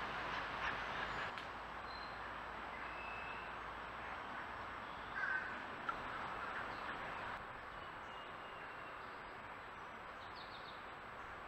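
Steady background din of the surrounding development in summer woods. A few short, harsh animal calls sound in the first second or so and once more about five seconds in, with faint scattered bird chirps.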